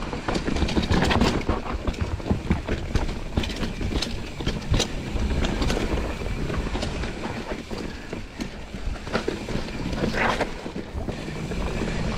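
Mountain bike riding over rough rock: a dense, continuous run of knocks and clatter from tyres and frame striking rocks, over a low rumble.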